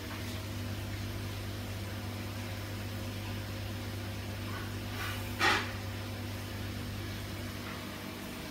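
Steady low machine hum from the fan or cooling unit of a stainless-steel drying chamber, with one brief sharp noise about five seconds in.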